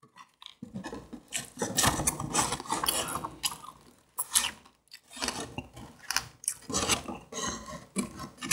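Wooden chopsticks and a cardboard fried-chicken box being handled: irregular scraping, rubbing and crackling with sharp clicks, starting about half a second in.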